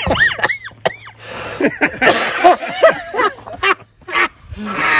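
People laughing and giggling in short bursts, with a few short clicks among the laughter.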